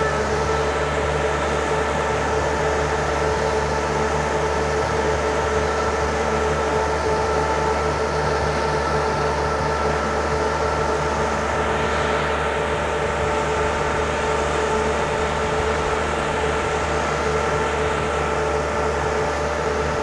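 Kubota- and Perkins-engined stand-on mini skid steers running side by side at full throttle while driving on their tracks. The sound is a steady engine drone with several steady high tones over it.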